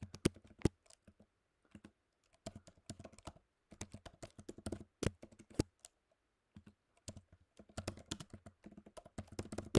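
Typing on a computer keyboard: quick runs of separate key clicks with short pauses between them, as commands are keyed in.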